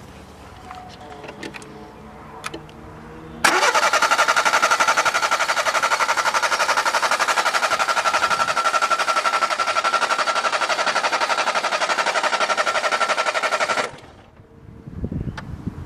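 Car engine being cranked by its starter motor for about ten seconds with its spark plugs out, during a compression test of one cylinder. The cranking is rhythmic and even, starts about three seconds in and cuts off suddenly near the end.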